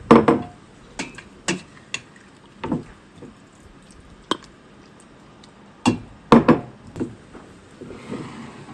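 Utensils knocking and clinking against a pot and bowl as noodle soup is served, about eight separate sharp strikes. The loudest come right at the start and twice around six seconds in.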